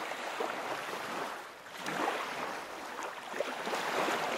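Ocean surf washing onto a beach: a steady rush of waves that swells and ebbs, dipping briefly in the middle and building again toward the end.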